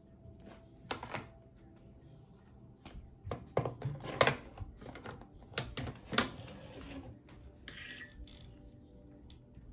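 Plastic watercolour paint box being opened and handled: a series of sharp clicks and clatters, most of them about three to six seconds in.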